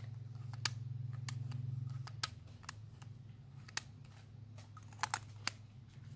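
Fingers and nails handling a small plastic tube, making irregular sharp clicks and taps about a second apart, with a quick double click near the end, over a steady low hum.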